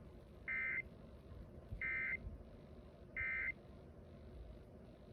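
Emergency Alert System SAME data header received over the radio: three short, identical warbling digital bursts about a second apart, over faint radio background noise.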